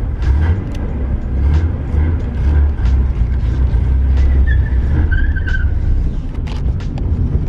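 Nissan Skyline R31's RB30 straight-six running at low road speed, with short tyre chirps about four and five seconds in: the mini spool differential locks both rear wheels together, so the rear tyres scrub when turning.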